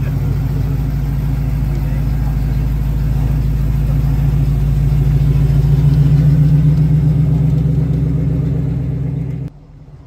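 Hot rod convertible's engine running at a low, steady rumble as the car rolls slowly past, growing louder as it goes by, then cut off abruptly near the end.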